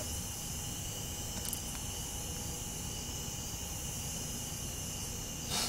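Crickets chirring at night, a steady high trill in a couple of even pitches over low background noise. One faint click about one and a half seconds in and a brief rustle near the end.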